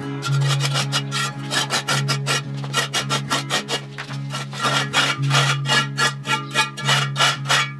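Steel trowel scraping and smoothing mortar along the foot of a concrete block wall against the slab, in quick repeated strokes of about three a second.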